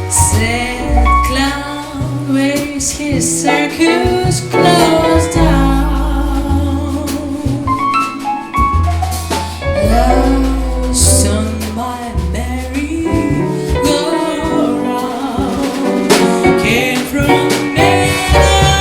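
Live jazz: a female voice singing a slow melody over a double bass line and a drum kit with cymbals.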